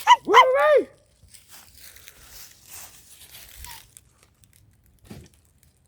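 An excited whooping shout, 'Woo-wee!', followed by about three seconds of faint crackling and rustling.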